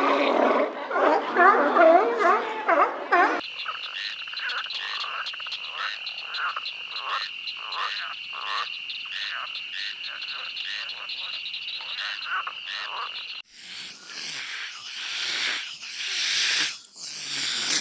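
Animal calls: first a few seconds of wavering pitched calls, then a run of short, rapidly repeated croaking calls over a steady high-pitched drone, then several loud breathy bursts near the end.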